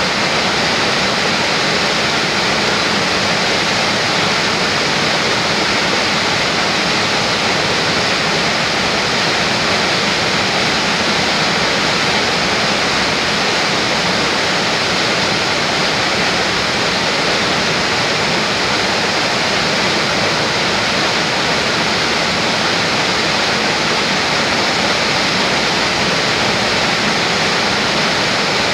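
Foaming white water rushing steadily over rocks in a small cascade: a loud, even rush with no breaks or changes.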